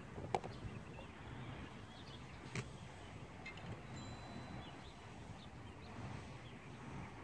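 Quiet outdoor ambience: a low wind rumble on the microphone, with a couple of faint short clicks, one just after the start and one about two and a half seconds in.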